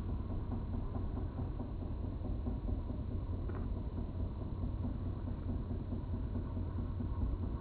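Firework fan cake's burning spark trails slowed four times, heard as a steady low rumble with a dense rough texture.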